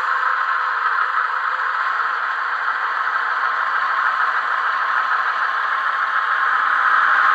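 Simulated diesel engine running, played by the DCC sound decoder through the small onboard speaker of a BB 400 diesel model locomotive: a steady, rattly hum with no deep bass, getting a little louder near the end.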